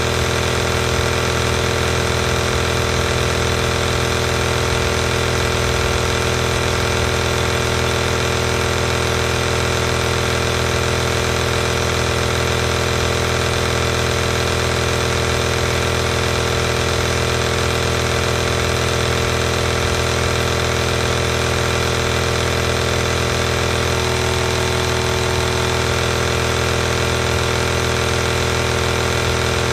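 Compressor nebulizer running steadily: an unchanging electric buzz from its piston compressor, with the hiss of air through the nebulizer.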